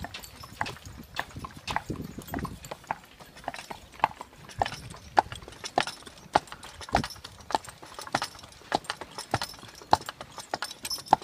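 Horse's hooves clip-clopping on an asphalt road as it pulls a cart, in a steady rhythm of about two strong hoofbeats a second.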